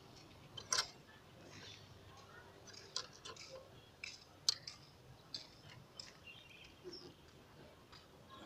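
Faint, irregular metallic clicks and clinks of a hand rebar-bending bar against thin steel reinforcing rod and the nails of a wooden jig as stirrups are bent by hand; the sharpest clicks come about a second in and near the middle.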